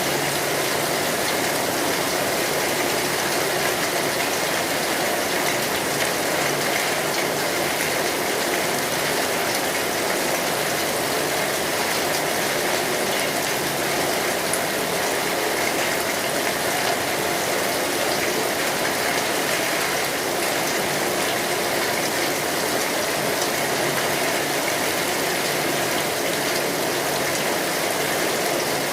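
Steady rain falling on a metal roof, with a wood fire crackling.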